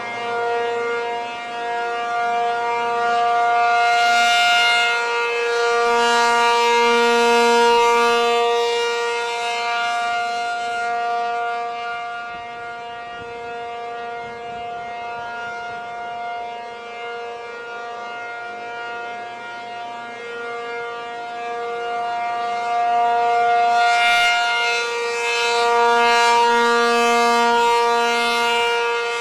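P-50 outdoor tornado warning siren sounding a steady, unwavering tone. It swells louder and fades back twice, loudest about four to ten seconds in and again near the end.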